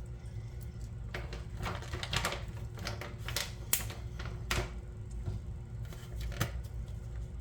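Light, irregular clicks and taps from handling the container of unsweetened coconut flakes while sprinkling them over a pancake, about a dozen spread unevenly, the sharpest a little before the middle, over a faint steady low hum.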